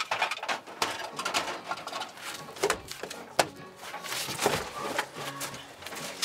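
Wood fire crackling and snapping, a dense run of irregular crackles with a few louder pops, over faint music.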